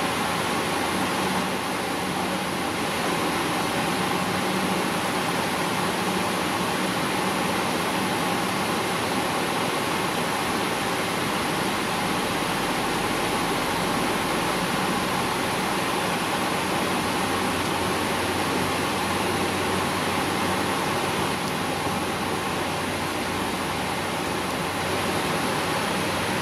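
Steady rushing air noise with a faint constant hum on a Boeing 777-300ER flight deck while the left engine is being started; no clear rise in pitch or sudden sounds.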